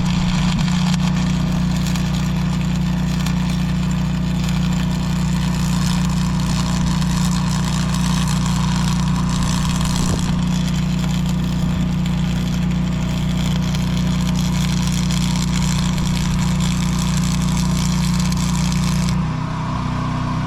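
Arc welding: a steady crackling hiss of the arc as a weld bead is laid on steel reinforcement plates, over a steady engine hum. The arc stops about a second before the end, and the hum's note changes as it does.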